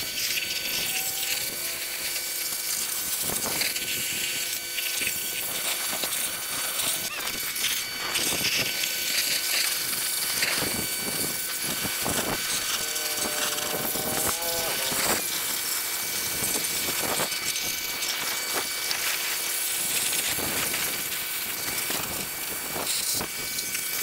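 Pressure washer spraying a jet of water onto a car's engine bay and frame rails, a steady hiss of water striking sheet metal with the machine's steady hum beneath it, rinsing off soaked-in oven cleaner.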